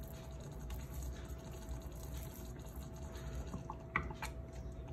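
Faint steady kitchen hiss with a low continuous hum, and a few light knocks about three and a half to four seconds in as a wooden spoon goes into a pot of tomato sauce.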